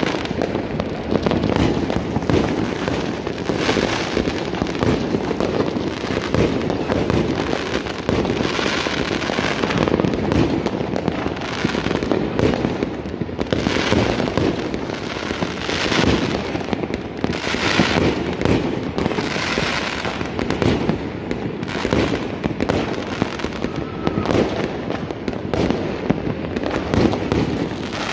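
Many fireworks going off at once across a city: a dense, unbroken barrage of bangs and crackling, swelling every few seconds as nearer bursts go off.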